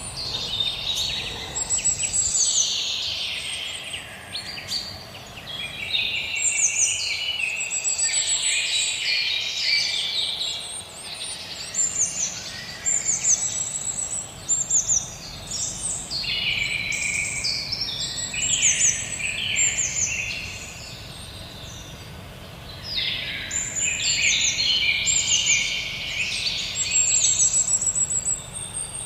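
Whistling heron (maria-faceira) calling: high whistled notes in bouts of several seconds, with short pauses between bouts.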